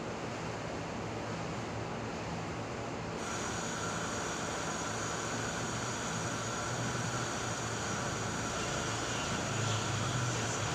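Steady mechanical hum over a constant hiss. About three seconds in, a higher steady whine and brighter hiss come in abruptly and continue.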